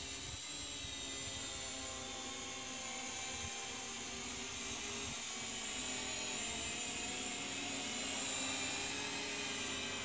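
Promark quadcopter drone's motors and propellers whirring steadily in flight, a high-pitched whine that grows slightly louder as the drone comes closer.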